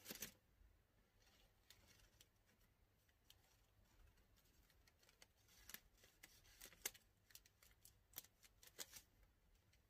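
Faint, dry clicking of a hand-held bundle of thin incense sticks being counted, the sticks ticking against one another and against the fingers. There is a short rustle right at the start, then scattered single clicks, more of them in the last few seconds.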